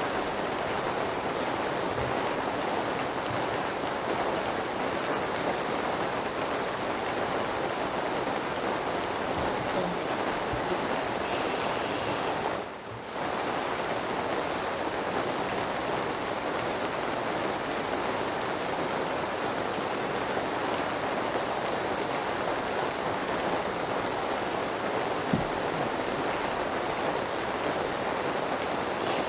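Steady rain noise, an even hiss that runs without a break except for a brief dip about thirteen seconds in.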